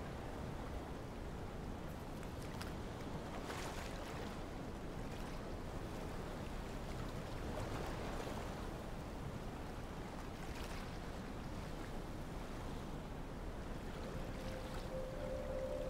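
Steady open-sea ambience: water washing, with a few soft swells. A held music note comes in near the end.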